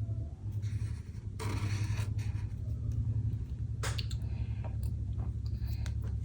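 Short scratchy strokes of a pen on paper, the longest about a second and a half in, with a sharp tick about four seconds in, over a steady low hum.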